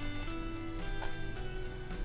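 Background music of held, slowly changing notes, with a few faint plastic clicks of a dodecahedral twisty puzzle being turned.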